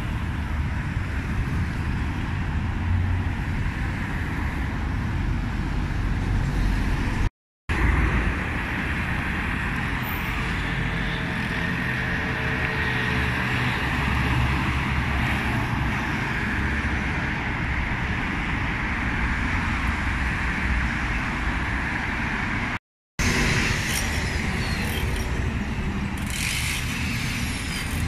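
Steady city street traffic noise with cars going by. The sound drops out completely for a moment twice, about seven and twenty-three seconds in.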